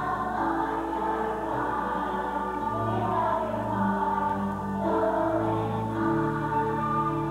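Children's choir singing.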